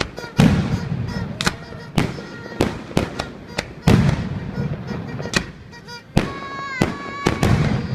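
New Year's fireworks going off: a rapid run of sharp bangs and crackles, with deeper booms from larger shells bursting about half a second in, around four seconds in and near the end.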